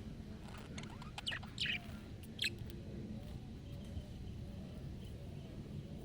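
Budgerigar giving a handful of short, sharp chirps in quick succession in the first half, the loudest two near the middle, over a steady low background hum.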